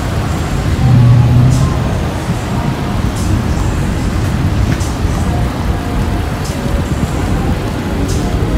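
Street noise of road traffic: a steady low rumble, with a louder low rumble about a second in.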